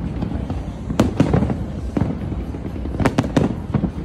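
Aerial fireworks bursting: a few sharp bangs about a second in and another quick cluster about three seconds in, over a steady low rumble of further explosions.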